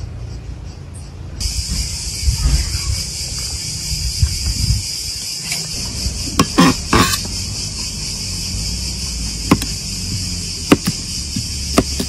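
A steady high-pitched insect chorus comes in about a second and a half in and carries on. From about halfway, a kitchen knife cuts through cucumber and green pepper, with several sharp knocks of the blade on a wooden plate.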